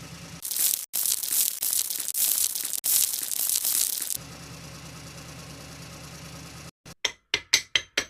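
Concrete mixer truck's engine running steadily, broken for about four seconds by a loud rushing noise of concrete pouring out. Near the end comes a quick run of sharp strikes, about three a second, like hammering.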